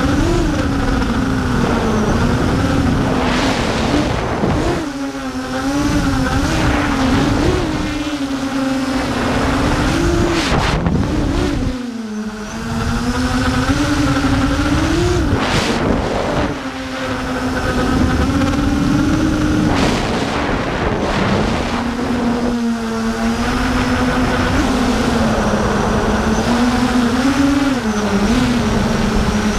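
DarkMax 220 FPV racing quadcopter's T-Motor F60 brushless motors and propellers whining, the pitch swinging up and down with every throttle change over a rush of air noise. The sound drops briefly about twelve seconds in and again a few seconds later, as throttle is chopped.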